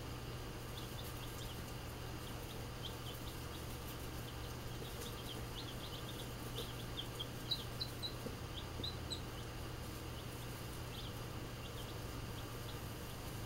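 Baby chicks peeping: many short, high chirps scattered throughout, busiest and loudest around the middle, over a steady low hum.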